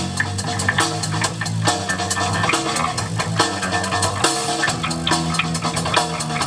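Live band music led by an electric bass guitar: low plucked bass notes moving from note to note over a steady drum and cymbal beat.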